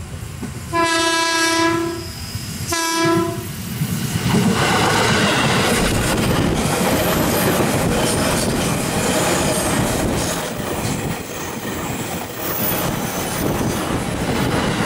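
Electric KRL commuter train sounding its horn twice as it approaches, a longer blast then a short one. The train then passes close by, its wheels running and clacking on the rails.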